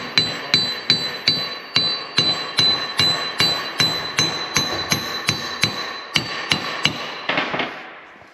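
Hammer blows on steel, about two and a half a second, each leaving a bright metallic ring that carries between strikes, stopping near the end. The target is the seized threaded adjuster of a dozer blade strut link, which is locking up.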